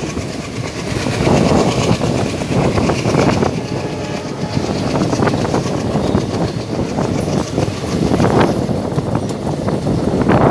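Passenger express train running, its wheels clattering over the rail joints in a steady clickety-clack.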